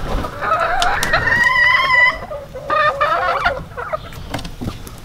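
Chickens clucking and calling. One long call rises and is held from about half a second to two seconds in, followed by shorter calls around three seconds in.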